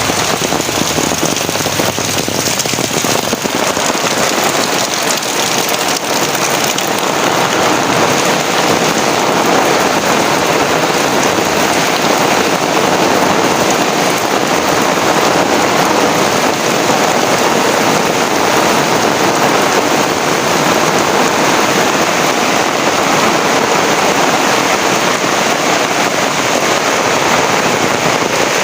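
Heavy rain falling, a steady, even hiss of drops on surfaces.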